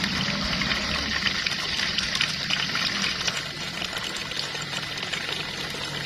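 Shallow water running and splashing steadily, a constant rushing hiss.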